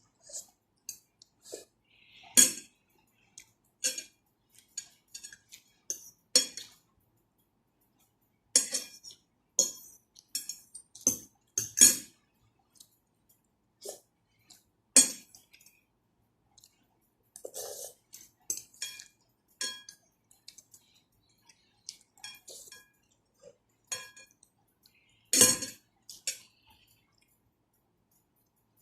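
Cutlery clinking and tapping against a soup bowl, irregular, with a few louder knocks.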